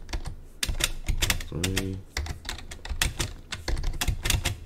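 Computer keyboard being typed on: irregular keystrokes, with quick runs of clicks at times, as code is edited.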